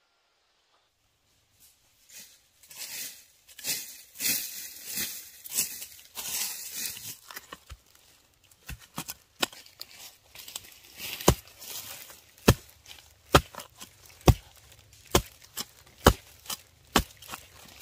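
Hand work with plant material: a few seconds of tearing and rustling, then a run of sharp chops with a blade, about one a second, in the second half.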